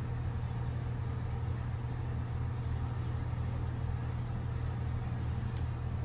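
Steady low mechanical hum of running machinery, with a couple of faint light clicks from handling the wires.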